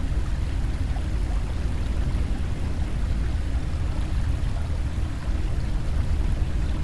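Steady low rumble with a fainter hiss above it, dipping briefly about five seconds in.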